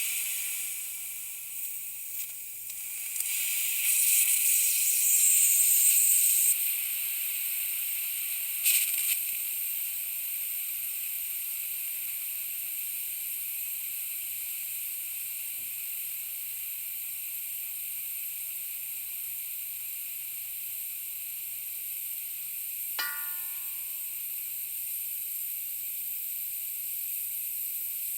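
Compressed air slowly leaking from an air tank: a steady high hiss that swells louder for a few seconds about four seconds in and surges briefly again near nine seconds. A single short metallic ping sounds once late on.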